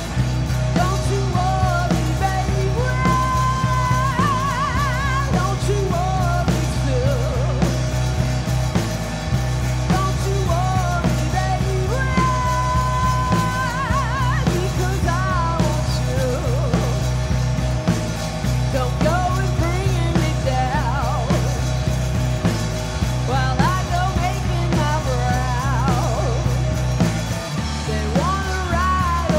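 A three-piece rock band playing live: a woman's lead vocal, held notes with a wide vibrato, over electric guitar, bass and drums. The bass notes change every couple of seconds.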